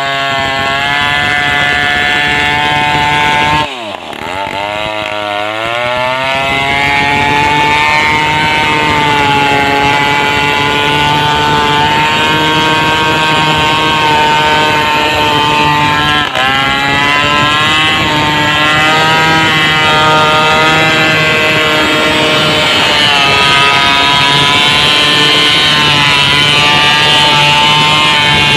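Stihl two-stroke chainsaw cutting a large sengon log at full throttle. The revs climb at the start and drop briefly about four seconds in and again midway, then hold high, sagging a little and recovering as the chain works through the wood.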